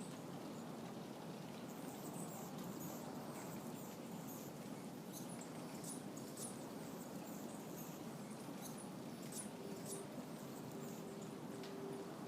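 Steady roar of distant ocean surf, with a hummingbird's high, squeaky chips scattered over it. A faint horn tone sounds near the end.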